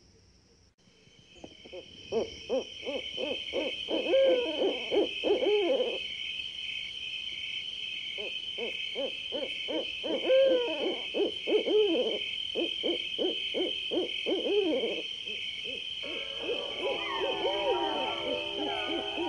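Night ambience with repeated owl hooting in two long runs, over a steady high chirring trill.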